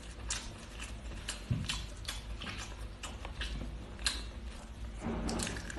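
A person chewing and biting food close to the microphone: irregular short mouth clicks and smacks, a few each second.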